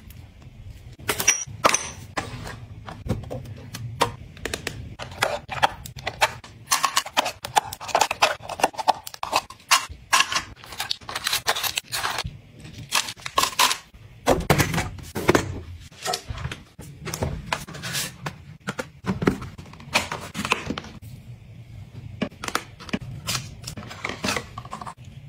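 Hands handling skincare packaging close to the microphone: a cream jar's lid being twisted, and sachets, a plastic tray and a paper carton being picked up and opened. These make many small clicks, taps and rustles in quick succession.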